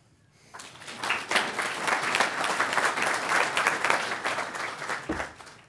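Audience applauding, starting about half a second in and dying away just before the end.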